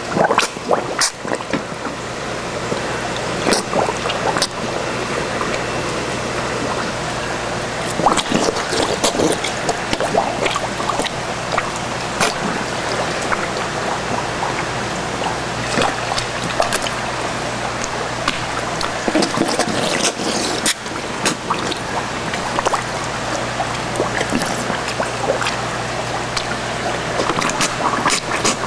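Large koi slurping and splashing at the water surface as they suck pellets from a baby bottle, with many short splashes and sucking clicks over a steady rush of moving water and a low hum.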